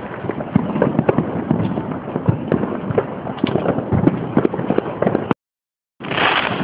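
Many fireworks and firecrackers going off at once, a dense run of overlapping pops and bangs. It cuts out suddenly about five seconds in, and after a short gap a hissing crackle returns for about a second and a half.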